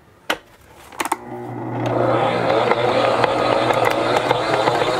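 Two sharp plastic clicks as the pouring shield is fitted to a stand mixer's bowl, then the mixer's motor is switched on about a second in and runs steadily, building up over the next second, with small knocks as the dough hook kneads the dough.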